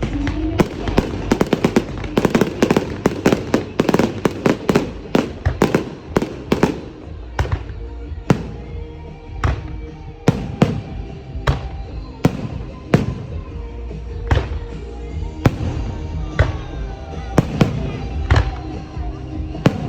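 Aerial fireworks bursting: a dense, rapid volley of bangs for the first several seconds, then thinning to single bangs about a second apart. Music plays steadily underneath.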